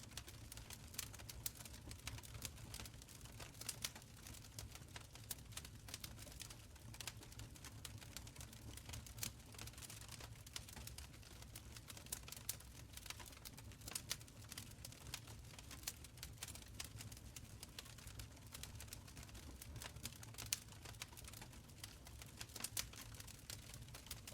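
Wood fire crackling in a stone fireplace: many small irregular snaps and pops, with a few sharper ones, over a low steady rumble.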